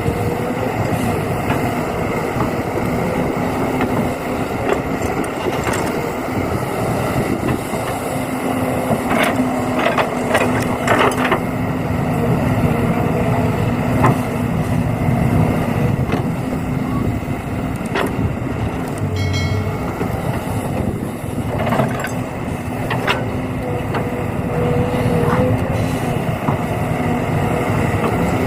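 Excavator and dump truck at work: a steady engine or motor hum with scattered clicks and knocks.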